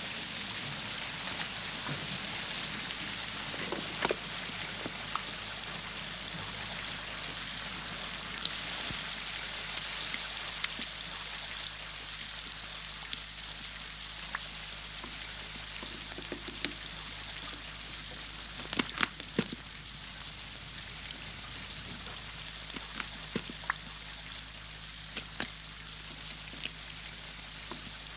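Water from a smashed aquarium trickling and dripping across a floor strewn with debris: a steady hiss over a faint low hum, with scattered small clicks and ticks and a cluster of louder ones about two-thirds of the way through.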